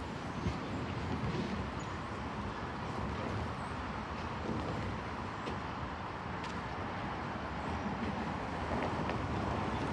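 Freight train rolling away down the track: a steady low rumble of its wheels on the rails.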